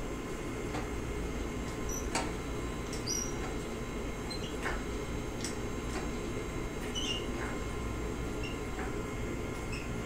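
Hand-pumped hydraulic engine hoist working, with short squeaks and clicks at irregular intervals about a second apart over a steady low hum.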